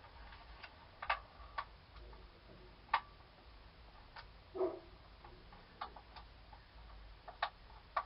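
Faint clicks at uneven intervals, about one a second, with one short, duller sound a little past halfway through.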